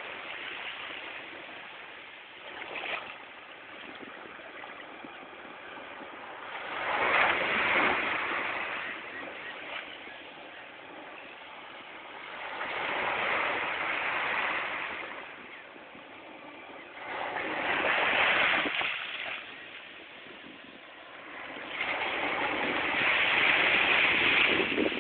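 Small sea waves breaking at the shoreline, foaming around a rock and washing up the sand. The rush of surf swells and fades four times, about every five seconds.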